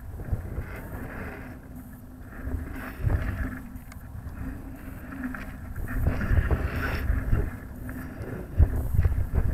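Wind buffeting the microphone of a camera riding in a weather balloon's payload box: uneven low rumbling gusts that swell louder near the end, over a faint steady hum.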